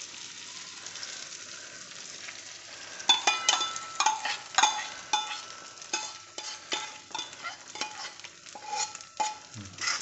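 Beaten eggs sizzling in hot oil and frying onions in a kadai. From about three seconds in, a steel spoon clinks and scrapes again and again against the steel bowl and the pan, with short metallic rings.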